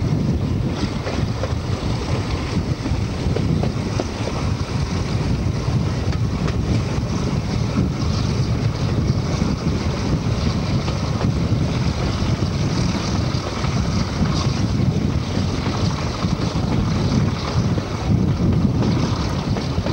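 Wind buffeting a microphone held out of the window of a moving diesel-hauled train, a steady heavy rush with the train's low running rumble underneath.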